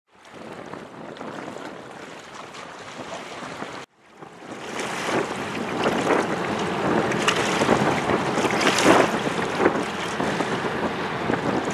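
Wind buffeting the microphone by the sea: a steady rushing with irregular gusts. It drops out for a moment about four seconds in and comes back louder.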